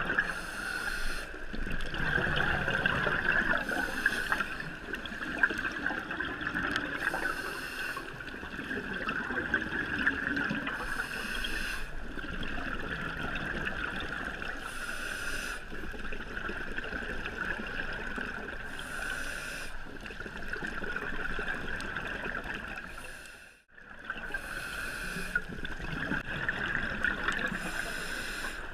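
Scuba regulator breathing heard underwater: a hissing rush of exhaled bubbles every three to four seconds over a steady muffled hum. The sound drops out briefly near the end.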